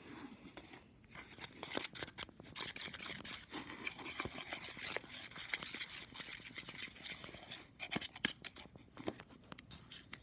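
A stirring stick scraping and tapping against a plastic bowl as glue and toothpaste are mixed into slime: a quick, irregular run of faint scrapes and clicks.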